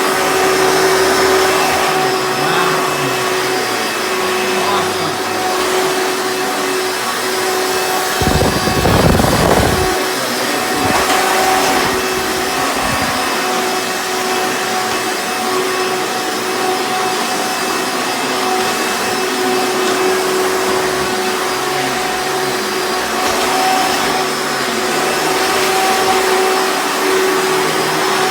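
Hoover Elite upright vacuum cleaner running with a steady whine over a loud rushing hiss. A few low thumps come about a third of the way in.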